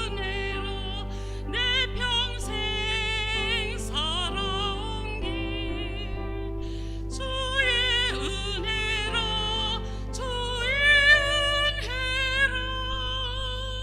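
A woman singing a slow solo hymn with vibrato over held instrumental accompaniment, with a steady low hum underneath.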